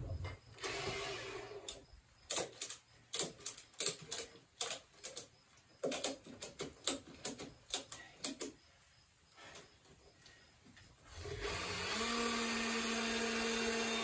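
A string of sharp knocks and clatters as a red gasoline chainsaw is handled on a pile of wood slabs, then about eleven seconds in the chainsaw's engine starts, picks up a notch and runs steadily.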